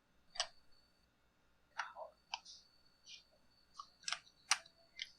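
Scattered light clicks and knocks of hard plastic chainsaw parts being handled and pressed into place during reassembly, about eight in all.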